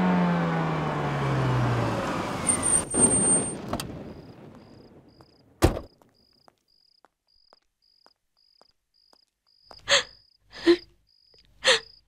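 A police jeep's engine winds down in pitch as the jeep pulls up and stops, and its noise fades away. About halfway through, a single sharp bang like a car door shutting. Then faint regular ticking and a faint high beep about twice a second, with three short knocks near the end.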